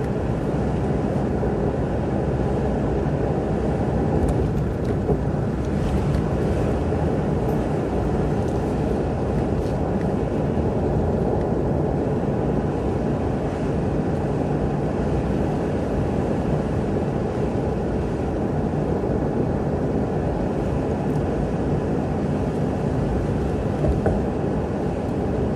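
Engine and road noise inside the cabin of a moving 2002 Nissan Xterra with its VG33E V6, steady throughout.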